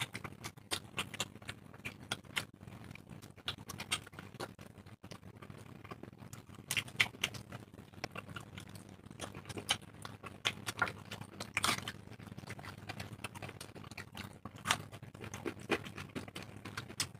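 Two people eating roti with chickpea ghugni by hand: a quiet, irregular run of chewing and mouth clicks and smacks.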